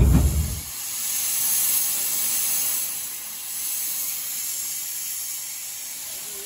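Narrow-gauge steam locomotive standing and hissing steam, a steady high hiss that eases a little in the second half. In the first half-second the low rumble of the moving train cuts off abruptly.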